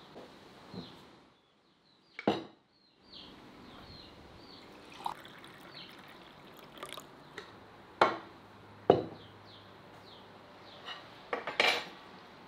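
Tableware being handled: a drink is poured into a clay cup, and ceramic cups and plates are set down with a few sharp clinks and knocks on a wooden table, two of them loudest near the middle. Steady high chirping runs in the background.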